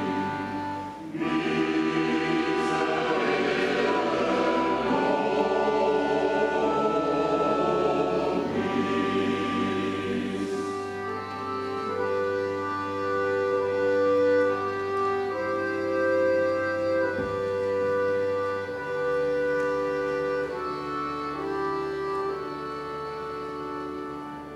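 Mixed choir singing with an accordion orchestra accompanying. After about ten seconds the music settles into steadier held chords over a sustained bass, and it grows somewhat quieter toward the end.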